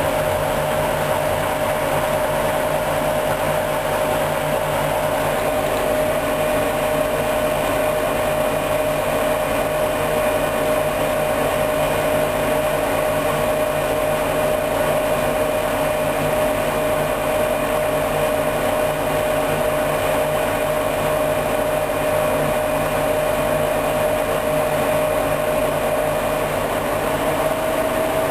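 Hoover Dynamic DYN 10124 DP washing machine running a spin, its motor and drum giving a steady whine over a low hum. The pitch starts to rise slightly near the end.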